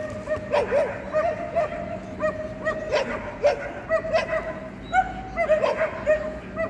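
Dogs barking and yipping over and over, short high yelps coming several times a second.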